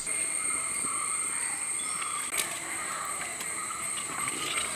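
Steady high-pitched drone of insects in the background, with a single sharp knock about halfway through.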